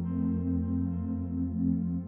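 Ambient background music with sustained low tones and a gently pulsing layer.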